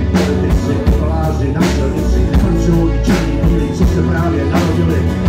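Live rock band playing: drum kit with a cymbal crash about every second and a half over a steady beat, with bass guitar and guitar.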